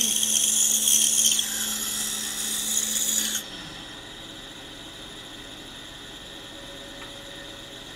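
Pegas band saw cutting through a small block of buckeye wood, a steady hum under a high-pitched rasping cut. A little over three seconds in, the cutting noise stops abruptly as the blade leaves the wood, and the saw runs on more quietly.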